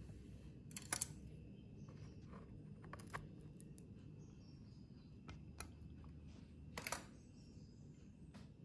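A few faint clicks and taps from metal kitchen tongs handling a topped croffle, over a low steady room hum; the clearest ones come about a second in, around three seconds in and near seven seconds.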